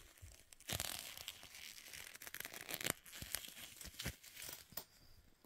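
Clear plastic toy packaging and parts crinkling and rustling as they are handled, with many small clicks; it fades near the end.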